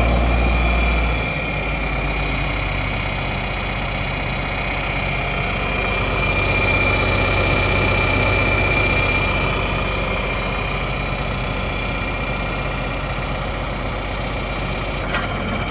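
John Deere 4430 tractor's six-cylinder turbocharged diesel idling steadily, with a steady high whine over the engine note. The low rumble drops a little about a second in.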